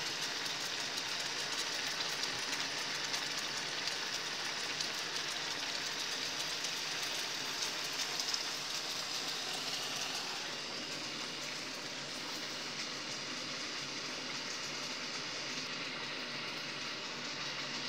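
Chicken simmering in sauce in a frying pan, a steady sizzling hiss with faint crackles as the sauce reduces.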